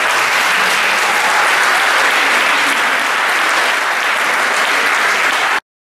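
Audience applauding at the end of a song, steady and dense, stopping abruptly near the end.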